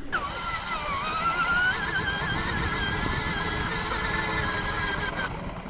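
Electric motor of an RC buggy running, a high whine that dips and then climbs and wavers in pitch with the throttle, over a steady rough noise from the buggy driving over rough ground. The whine drops out briefly near the end, then comes back.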